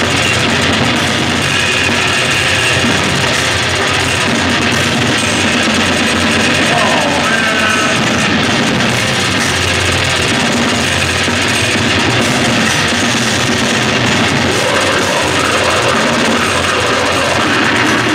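Technical death metal band playing live: drum kit, distorted electric guitar and bass in a dense, loud, unbroken wall of sound.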